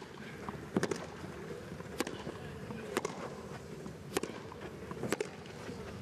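Tennis rally: a tennis ball struck back and forth with rackets, a sharp pop about once a second, five hits in all.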